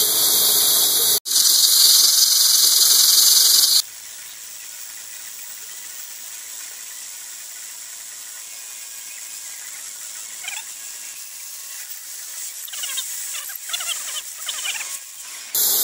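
End mill on a Bridgeport-type milling machine cutting the threaded end of a steel shaft, with mist coolant hissing loudly for the first few seconds. Then the hiss drops much quieter and the cutter squeals in short chirps over the last five seconds.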